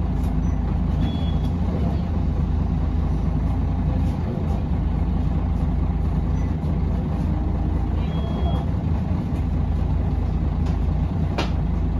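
Mercedes-Benz O405NH city bus heard from inside while under way: its engine and ZF automatic drivetrain run at a steady pace as a low drone. Two brief high squeaks come through, and there is a sharp click near the end.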